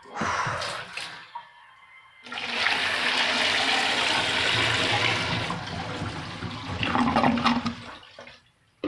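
A clear see-through plastic toilet is flushed with a sock in the bowl. A few knocks come first, then about two seconds in comes the loud rush of the flush. It tails off over the next few seconds as the sock goes down.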